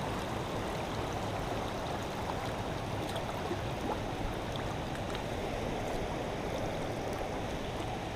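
Shallow creek water running steadily over shale and stones.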